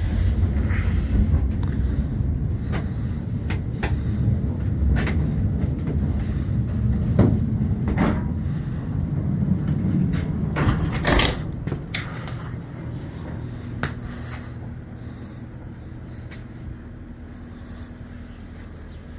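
Skid steer engine running with a steady low rumble, with scattered clanks and knocks as stacks of dried lumber are slid out of the kiln and handled; the engine grows quieter about two-thirds of the way through.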